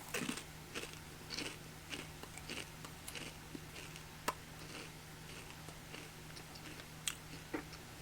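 A person chewing Pringles potato crisps close to the mic, with short crunches about twice a second at first that thin out as the chewing goes on. A faint steady low hum lies underneath.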